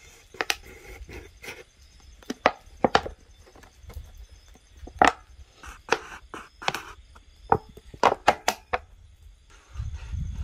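Kitchen knife cutting into a thin clear plastic water bottle: a string of sharp, irregular crackles and clicks from the plastic as the blade saws and presses through, stopping about nine seconds in.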